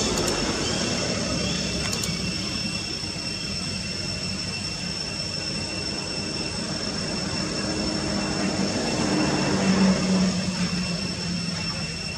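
Low engine-like hum, swelling to its loudest about ten seconds in and then easing, over a steady high-pitched whine.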